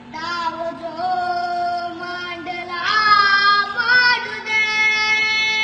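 A boy singing, moving between notes with small slides, then holding one long note near the end.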